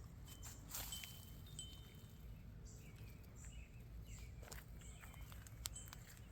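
Faint outdoor garden ambience: scattered short bird chirps and a few soft clicks over a low steady rumble.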